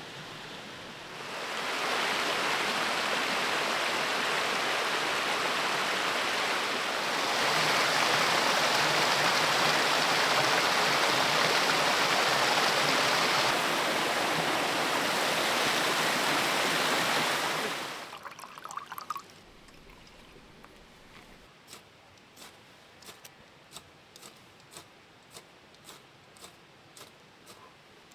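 Rushing river water, a steady rush that gets louder after several seconds and cuts off suddenly about two-thirds of the way in. After it, a quieter stretch with a regular series of faint ticks.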